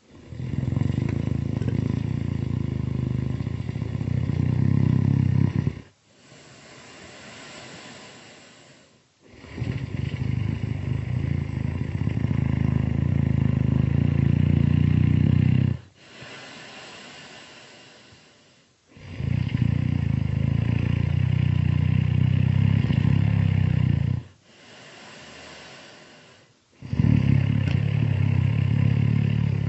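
Loud, heavy human snoring in a slow, even cycle. Long, loud rasping snores of about five to six seconds each alternate with shorter, much quieter breaths; three full snores are heard, and a fourth starts near the end.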